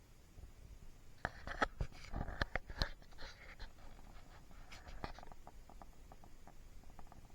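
A burst of small scratches and sharp clicks between about one and five seconds in, then fainter scattered ticks: a small pet moving about and scrabbling.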